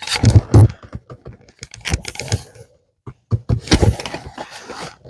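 Wood clicking, knocking and scraping in quick irregular clusters as a wooden piece is worked and pushed into place.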